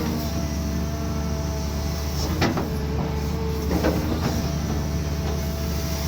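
Cat 320D2 excavator's diesel engine running steadily under load, with a steady whine over the drone, and a few sharp knocks or cracks about two and a half and four seconds in.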